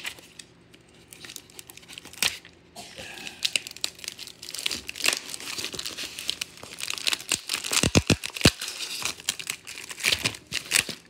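Plastic mailer and clear plastic team bags of trading cards being handled and pulled open: crinkling and tearing of plastic and tape, with a few knocks about eight seconds in.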